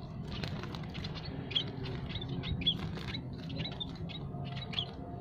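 Scaly-breasted and Javan munias chirping without pause: a rapid stream of short, high peeps, several a second, over a low steady hum.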